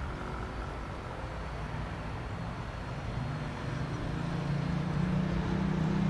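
Cessna 172P Skyhawk II's four-cylinder Lycoming piston engine and propeller running at low taxi power, a steady drone that grows louder in the second half.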